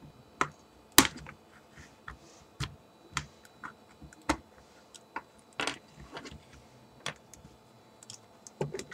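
Irregular sharp plastic clicks and snaps from an iPod Color's case as its white plastic front and metal back are pried apart by hand, the retaining clips letting go; the loudest snap comes about a second in.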